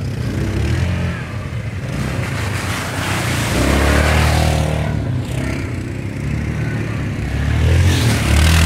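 Quad bike (ATV) engine running and revving as it drives through mud close by. It gets louder about three and a half seconds in and again near the end.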